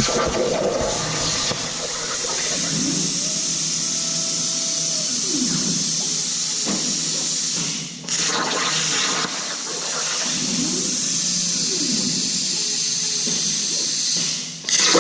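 CNC plasma cutter torch cutting sheet steel: a loud, steady hiss of the arc and its air jet. It breaks off briefly about eight seconds in, then carries on.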